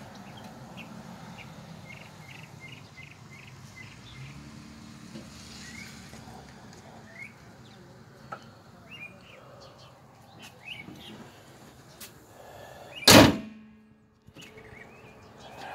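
Car hood slammed shut once, a single loud bang about thirteen seconds in. Before it, birds chirp over a low outdoor background.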